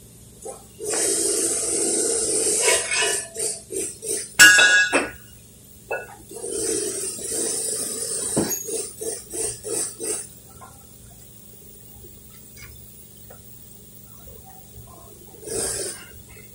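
Two spells of hissing, each breaking into rapid stuttering pulses, and a sharp metallic clink that rings briefly between them, about four seconds in. A short hiss comes near the end.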